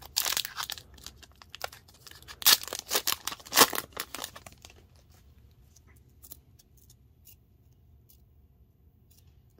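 Wrapper of an Upper Deck hockey card pack torn open and crinkled in two bouts, the louder one from about two and a half to nearly five seconds in. After it come faint clicks as the stack of sticky cards is slid apart.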